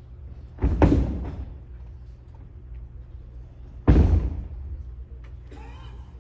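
Two heavy thuds about three seconds apart: aikido partners landing on the mat in breakfalls as they are thrown, each one echoing through a large sports hall.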